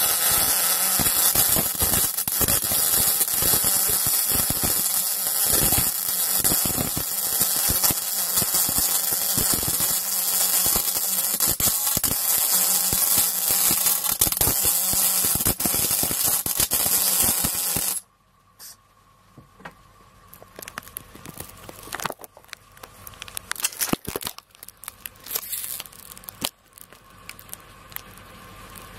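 MIG welding arc from an Esab C200i welder, crackling steadily as it lays a bead on stainless steel, then stopping suddenly about eighteen seconds in. After that come only faint scattered clicks and knocks.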